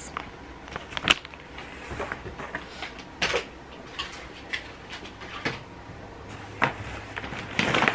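Handling of packaged toiletries: scattered clicks and knocks with plastic rustling as items are put down and picked up, one sharper knock about a second in and a longer rustle near the end.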